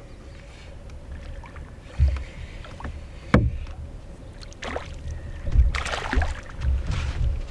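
Knocks and handling sounds in an aluminium-free canoe, with a sharp knock about three and a half seconds in, then several bursts of water splashing in the second half.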